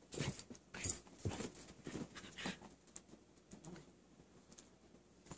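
A Chihuahua and a mini husky play-wrestling: a run of short, irregular dog play sounds and scuffles, with a sharp click about a second in. The sounds are busiest in the first three seconds and then quieter.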